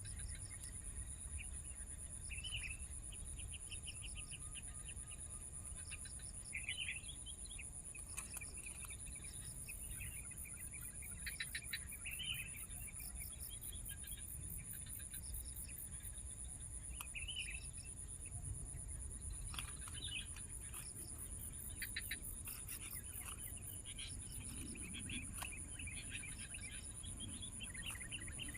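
Small birds chirping in short calls and quick trills, over a steady high-pitched insect drone.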